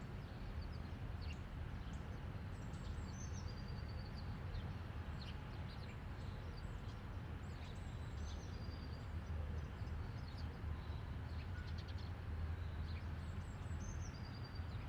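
Faint outdoor background with a steady low hum, and a small bird singing a short high chirping phrase a few times, most clearly about three seconds in and again near the end.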